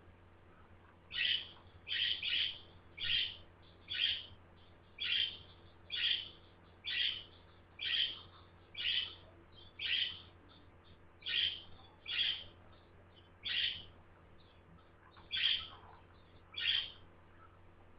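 Budgerigar calling: a long series of short, sharp chirping calls, roughly one a second, each much like the last.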